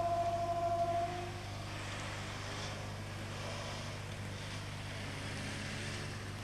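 A horn sounds one steady note for about a second and a half. Then cars drive past over the railway level crossing with a steady rush of engines and tyres.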